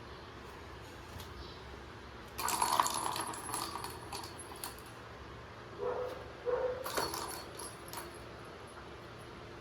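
Kittens at play: two spells of quick rattling clicks, with two short high kitten mews between them about six seconds in.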